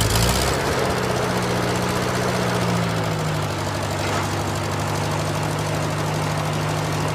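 Tractor engine running steadily at a low, even rhythm.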